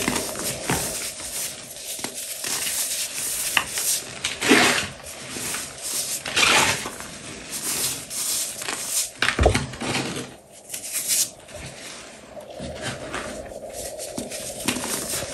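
Hands crushing and crumbling a block of dyed gym chalk into loose powder: irregular dry crunches and sandy rustling, with a few louder crunches and a dull thump about nine and a half seconds in.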